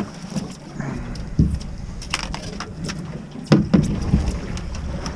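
Steady low wind rumble on an open fishing boat, with a few sharp knocks and clatters of fish and gear being handled on the deck. The loudest is a cluster of knocks about three and a half seconds in.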